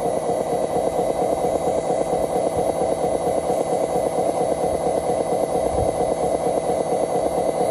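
Radio-controlled scale Hino 500 truck's drive running under load as it hauls a full trailer through loose dirt: a steady drone with a fast, regular pulse and a thin, high, steady whine.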